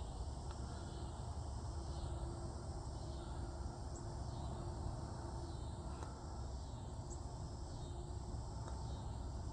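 Faint, steady background noise: an even hiss with no distinct event.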